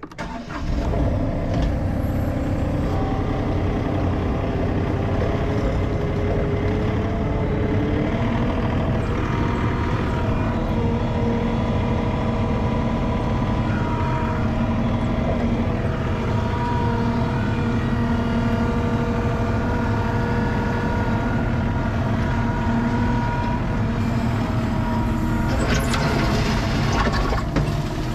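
Compact track loader's diesel engine starting and then running steadily, its pitch rising about eight seconds in as it is throttled up. Near the end the steel bucket scrapes and crunches into a pile of gravel.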